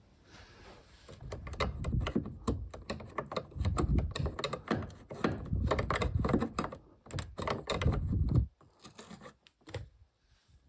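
Rapid, irregular clicking and clattering of hands working with tools and small car-door parts, starting about a second in and stopping near the end.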